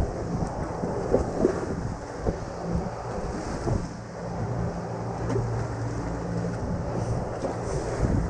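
Twin Suzuki 150 outboard motors running steadily with the boat underway, a low drone under wind buffeting the microphone and water rushing past the hull, with a few brief knocks.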